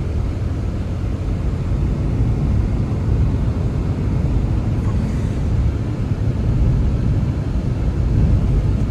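A steady low rumbling noise with no distinct events.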